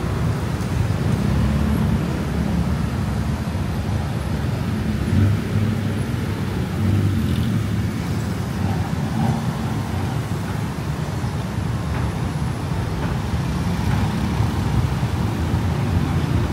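Steady road traffic: the engines of cars, buses and motorbikes running, mostly low in pitch with no single event standing out.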